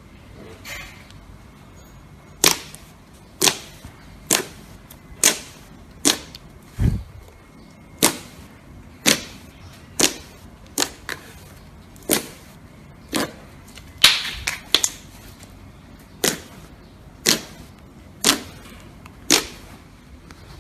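Slime being pressed and popped, giving a string of sharp pops about once a second, with one duller thud about seven seconds in.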